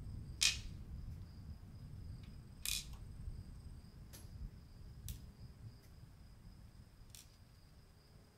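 Small brass lighter parts set down one at a time on a wooden tabletop: five or so short, sharp taps, the first two loudest, with a faint steady high whine underneath.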